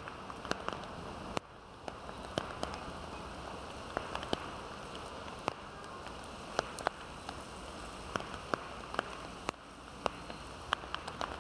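Heavy rain falling: a steady hiss of the downpour with frequent, irregular sharp ticks of single drops striking.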